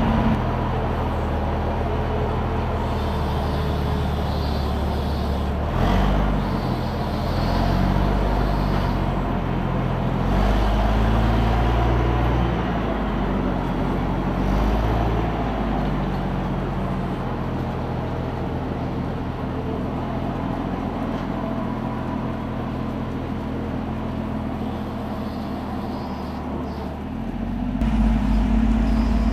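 Engine running, its speed rising and falling, with a single knock about six seconds in and the engine growing louder near the end.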